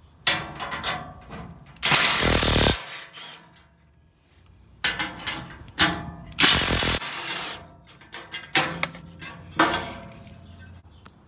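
Cordless driver with a 10 mm socket on a long extension spinning bolts out of a steel skid-plate cover, in several short rattling bursts. Two longer, louder runs come about two seconds and six seconds in.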